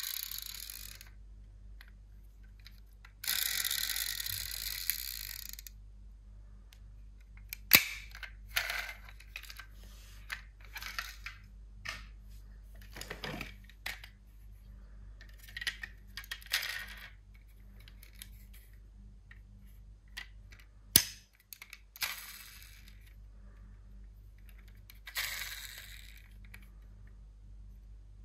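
Small diecast toy cars clicking and clinking against each other and a hard surface as they are handled, with scattered sharp clicks and a few longer stretches of rattling, the longest about three seconds in.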